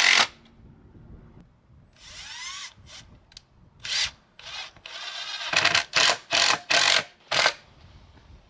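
A handheld power tool run in short bursts with sharp starts and stops. About two seconds in, its motor whine rises as it spins up, and in the second half it fires in quick bursts of two or three a second.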